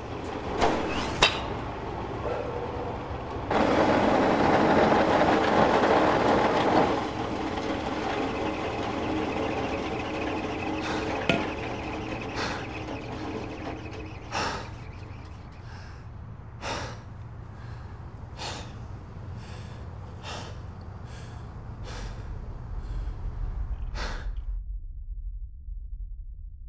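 Tense film sound design: a low rumbling drone that swells loud for a few seconds, followed by a run of sharp single hits every second or two with breathy gasps between them, then only the low rumble left near the end.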